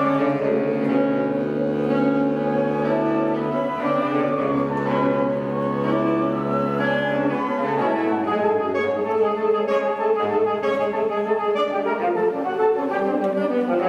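A small woodwind ensemble of flute and saxophones plays a slow piece live. The first half is held chords; about halfway through it moves into shorter, moving notes.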